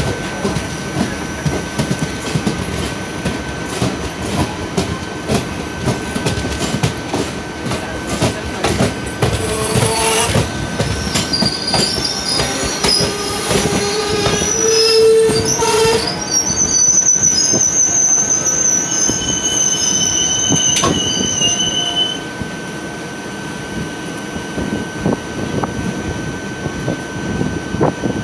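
Indian Railways ICF passenger coaches rolling slowly on the adjacent track: a steady wheel-on-rail rumble with clacking over the joints, and high-pitched wheel squeal for about ten seconds in the middle.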